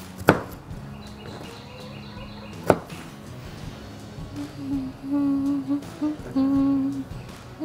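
Two sharp knife taps on a cutting board while a jalapeño is sliced, then from about halfway in a person humming a tune in several long held notes.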